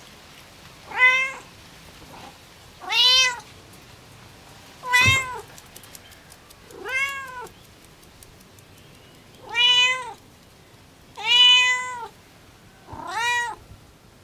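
A cat meowing over and over: seven separate meows about two seconds apart, each a rising-then-falling call. A short knock comes with the third meow, about five seconds in.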